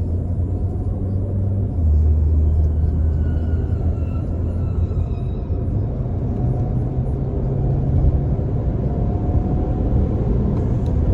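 Volkswagen Jetta's turbocharged engine droning at a steady cruise with a deep rumble, and a faint falling whistle from the turbo about three to five seconds in.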